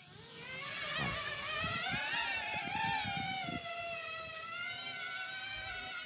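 Electric motors and propellers of a large remote-control flying wasp model whining, a buzz of several tones at once. It grows louder within the first second, and its pitch wavers up and down as the craft climbs and manoeuvres.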